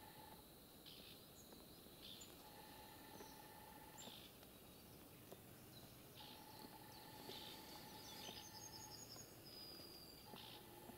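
Faint quiet outdoor ambience at dawn: scattered short high bird calls about once a second, with a brief high trill about eight seconds in. A faint steady tone sounds on and off in stretches of a couple of seconds.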